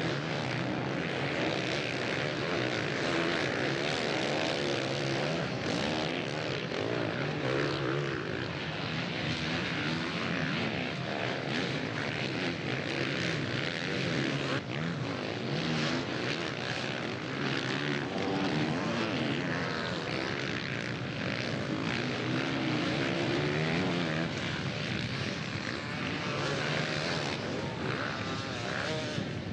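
Several motocross bikes racing, their engines revving up and down through the gears with engine notes rising, falling and overlapping.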